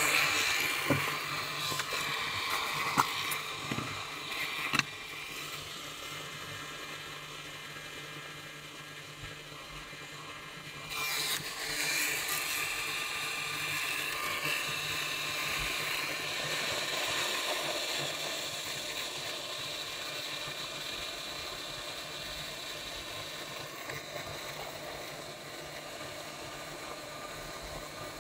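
Hot air rework gun blowing a steady hiss of air while it heats the faulty 3.3 V step-down regulator IC on the circuit board to desolder it. A few sharp clicks come in the first few seconds, and the airflow gets suddenly louder about eleven seconds in.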